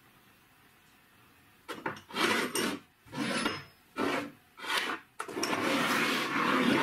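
Steel parts being dragged across a wooden workbench top by hand. A run of short scrapes begins about two seconds in, then one longer continuous scrape follows near the end.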